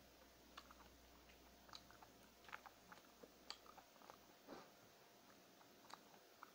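Faint eating sounds of mutton biryani being eaten by hand: chewing, with a dozen or so soft, irregular mouth clicks.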